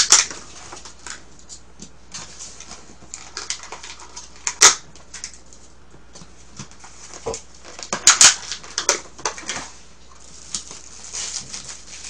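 Plastic food containers and packaging being handled and pried open on a table: irregular crinkles and sharp plastic clicks, with the loudest snaps near the start, about four and a half seconds in and about eight seconds in.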